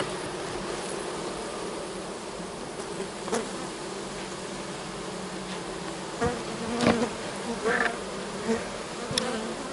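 Honey bees from an opened hive buzzing in a steady hum, with a few brief knocks scattered through.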